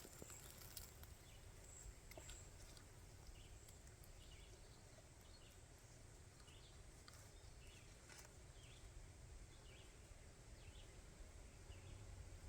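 Near silence in woodland, with faint scattered chirps of distant birds.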